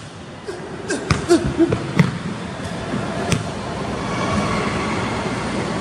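Basketball bouncing on a hardwood gym floor: a handful of sharp bounces in the first two seconds and one more a little after three seconds, over a steady hum of room noise.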